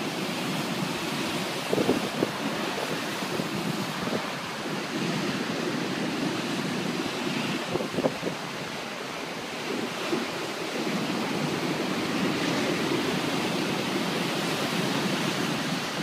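Rough storm sea breaking and churning against a stone sea wall: a continuous heavy rush of surf and foaming white water. Wind gusts buffet the microphone a few times.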